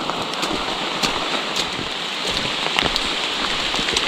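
Steady soaking rain, with many sharp ticks of drops striking close by.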